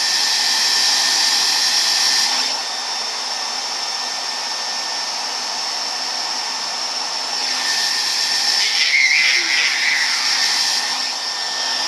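Hand-held hair dryer blowing steadily, louder for the first two seconds or so, then dropping back, and growing louder again after about seven and a half seconds.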